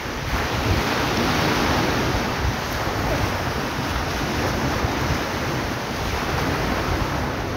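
Surf washing on the beach, with wind buffeting the microphone as a steady rushing noise and a low rumble.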